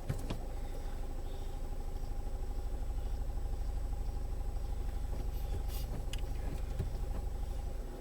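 Land Rover Freelander 2 engine running steadily at low revs, a low even rumble, with a few faint clicks.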